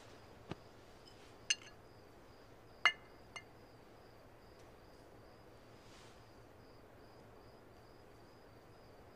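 Four light clinks of dishes in the first three and a half seconds, the third the loudest. Under them runs faint, steady cricket chirping.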